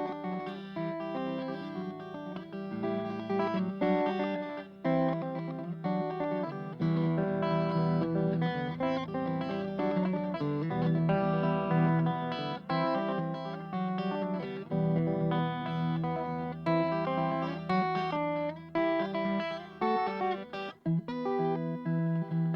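Guitar playing the instrumental intro of a song: a run of plucked notes and chords, with no singing yet.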